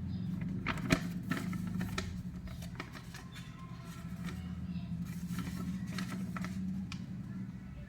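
Handling noise from new car stabilizer links and their packaging: scattered clicks and rustles, over a steady low hum.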